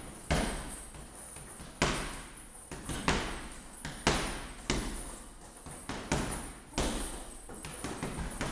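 Punches landing on a heavy punching bag: a series of sharp thuds, roughly one or two a second at an uneven pace, each dying away briefly in a large room.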